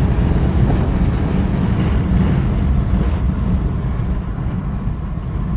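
The 2011 BMW 335d's triple-turbo straight-six diesel pulling hard under boost through the gears, a heavy low rumble mixed with wind and road noise. It eases off slightly in the last couple of seconds.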